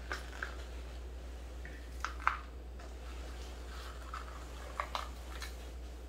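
Faint clicks and light rustling of clear plastic cups as mixed zinc and sulfur powders are poured from one cup into another, with a few sharper taps about two seconds in and again near five seconds. A steady low hum runs underneath.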